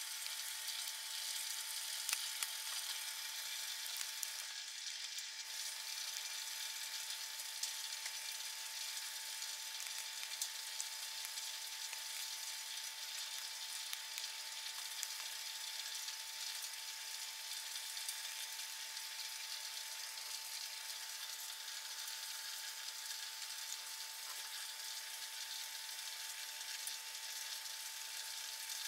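Steady sizzling hiss with small scattered crackles from a homemade aluminium-can alcohol stove heating a mess tin of boiling water that is giving off steam.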